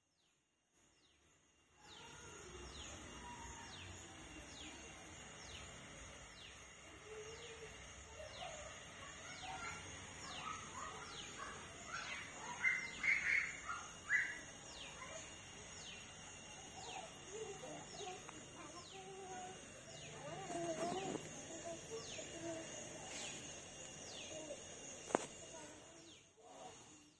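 A bird repeating a short, high, falling call every second or so over steady outdoor noise, starting about two seconds in.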